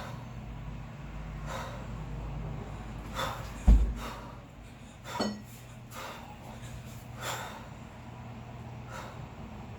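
Hard, rhythmic breathing of a kettlebell lifter working through a long cycle set with two 16 kg bells: sharp exhalations and gasps about every one and a half to two seconds. A single heavy low thud comes a little over a third of the way in.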